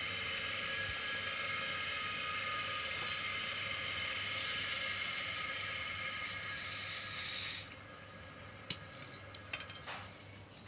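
Sewing machine electric motor running with a steady high whine and hiss, which cuts off suddenly about three quarters of the way in, followed by a few sharp clicks and knocks of handling.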